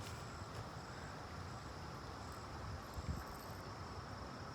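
Steady high-pitched trilling of insects, with a dull low thump about three seconds in.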